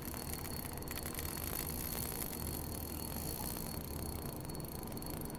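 Spinning reel being cranked steadily while reeling in a hooked striped bass, a soft even ticking over a steady low hum.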